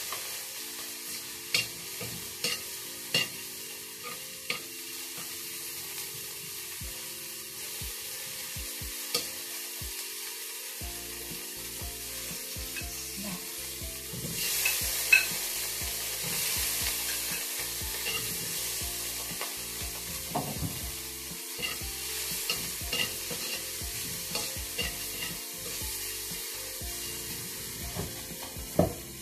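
Food sizzling in hot oil in a wok, stirred with a metal spatula that scrapes and taps against the pan now and then. The sizzle grows louder about halfway through.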